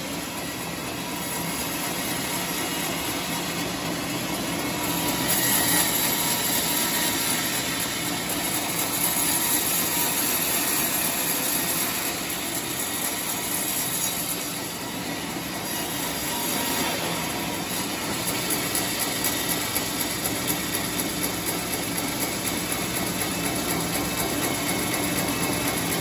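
Homemade circular-saw sawmill running, its engine and blade making a steady mechanical noise that swells slightly about six and ten seconds in.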